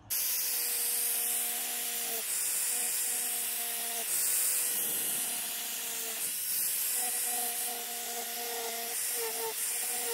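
Angle grinder carving into wood, its motor whining at a steady pitch over a dense abrasive hiss. The pitch dips briefly several times near the end as the disc bites and loads.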